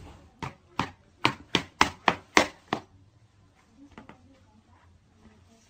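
A toddler's shoes stepping on a wooden floor: a quick run of about eight sharp clacks, roughly three a second, over some two and a half seconds, then a few faint steps.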